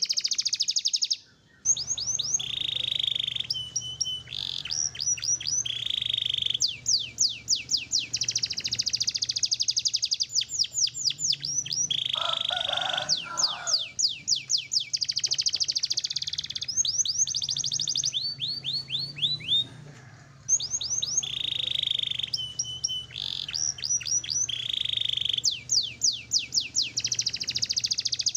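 Canary singing a long, fast song: rapid runs of downward-sweeping trill notes alternating with short held whistled notes, over a low steady hum. The song breaks off briefly about a second in and again around twenty seconds in.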